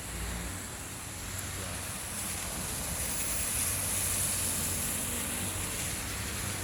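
Street ambience on wet roads: a steady hiss of traffic on wet asphalt that swells a little about two seconds in and then holds.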